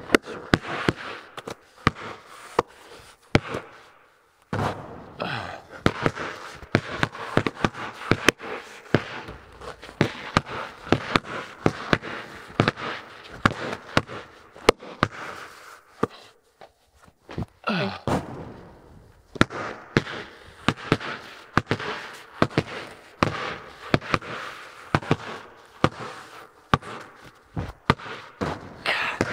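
Basketballs bouncing and thudding on a bare concrete floor, many sharp echoing impacts in a large metal-walled barn.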